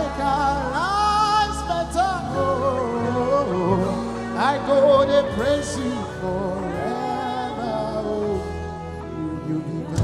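Live gospel worship music: a singer holds and slides long notes with vibrato over sustained keyboard chords and bass.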